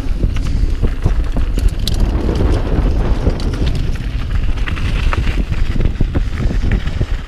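Mountain bike riding fast down a dirt trail: tyres rolling over gravel, with many small knocks and rattles from the bike over bumps and heavy wind rumble on the camera's microphone.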